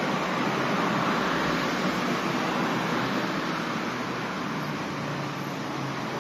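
Road traffic on a multi-lane road: a steady hiss of tyres and engines from passing cars, easing off slightly after about three seconds.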